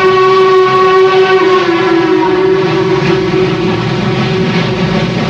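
Norfolk & Western articulated steam locomotive sounding its whistle in one long held blast that drops slightly in pitch about a second and a half in and fades out around four seconds in, over the steady rumble of the locomotive and train running past.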